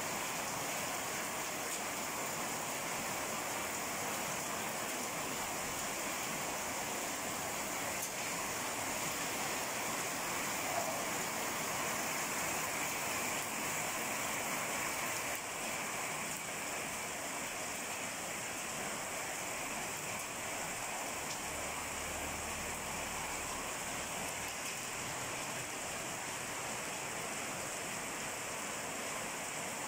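Rain falling steadily, an even hiss with no distinct events.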